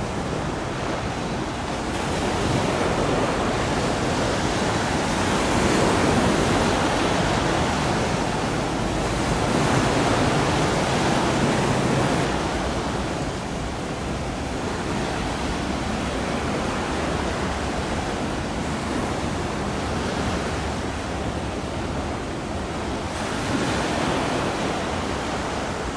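Steady rushing of waves and wind at the water's edge, swelling for several seconds in the middle.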